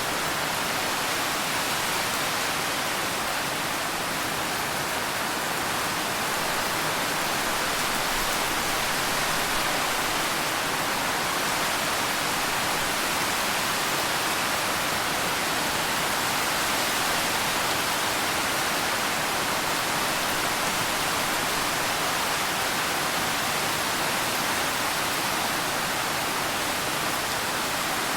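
Steady rain, an even hiss that does not change, with no separate drops or thunder standing out.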